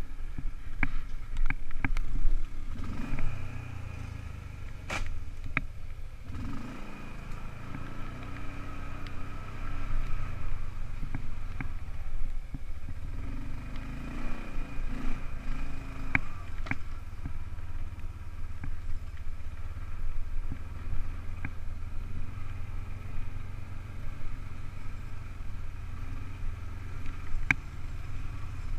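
ATV engine running while the quad is ridden along a muddy trail, its pitch rising and falling with the throttle. Occasional sharp clicks and knocks.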